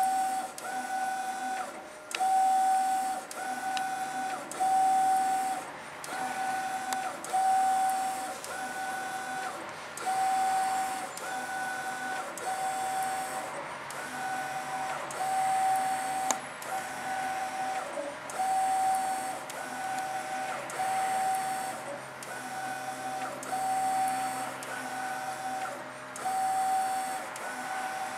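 Mimaki GP-604 direct-to-garment printer printing a t-shirt: the print head carriage sweeps back and forth, each pass a steady humming tone, about one pass a second with short breaks between.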